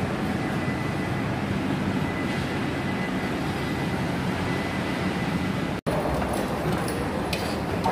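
Steady din of an underground car park: a continuous rumbling noise with a faint high steady whistle tone. The sound cuts out for an instant about six seconds in, then the steady noise carries on.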